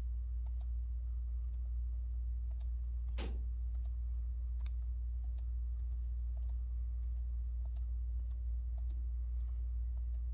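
Steady low hum from a trail camera's recording, with faint scattered ticks and one quick downward-sweeping sound about three seconds in.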